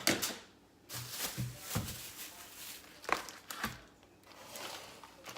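Handling noises from food preparation: several light knocks of plastic containers and packages set down on a counter, with rustling of packaging in between.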